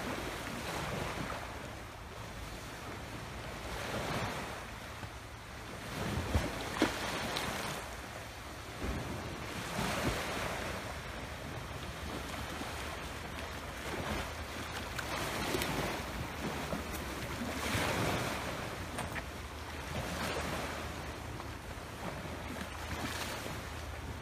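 Small sea waves washing against a rocky shore, surging every two to three seconds, with wind rumbling on the microphone. Two brief sharp knocks about six and a half seconds in.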